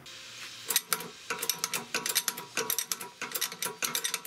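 Irregular metal clinks and clanks, several a second: a steel suspension control arm and press adapters being handled and set on the steel bed of a hydraulic shop press.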